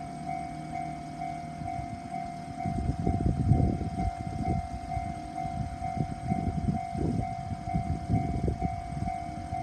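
Japanese level-crossing warning bell ringing in a steady, even repeat while a train passes over the crossing. About three seconds in, the train's low rumble and wheel clatter over the rails join the bell and keep going.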